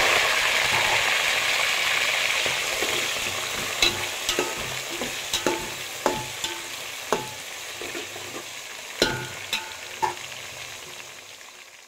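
Onion, green chillies and tomato sizzling in hot oil in a metal pot, the sizzle fading steadily. From about four seconds in, a metal spoon stirring and clanking against the pot every second or so.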